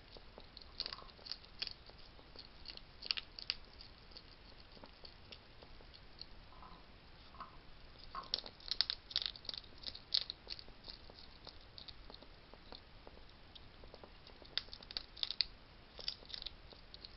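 Wild hedgehogs eating at a feeding station: crunching and chewing food in quick runs of sharp clicks, in three spells with quieter gaps between.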